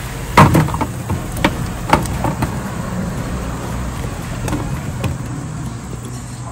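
A metal wok being tipped and scraped out over a steel tray as glazed banana rolls slide onto it. There is a string of sharp metal knocks and scrapes in the first couple of seconds, the first the loudest, then two softer ones later, over a steady low hum.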